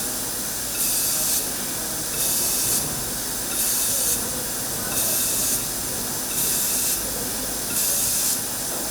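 Pillow-plate fiber laser welding machine at work: a high hiss that swells and fades in a regular rhythm, about every second and a half, over a steady machine noise.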